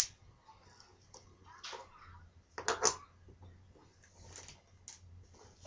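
Small metal muller herb grinder clicking and knocking as it is handled and set down on a wooden table: a sharp click at the start, a short scrape, then two loud clicks close together near the middle and a few fainter clicks after.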